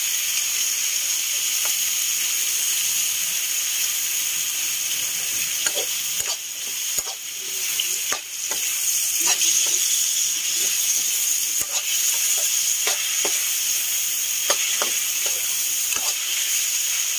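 Garlic, onion, tomato and pork sizzling steadily in hot oil in a metal wok, with a metal ladle scraping and clicking against the pan at irregular moments as the sauté is stirred.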